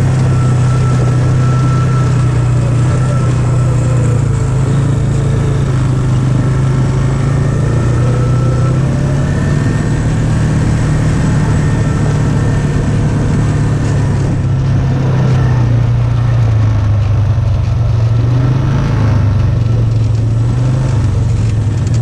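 ATV engine running at low speed, a steady low drone that wavers a little in pitch with the throttle, heard from on board the machine.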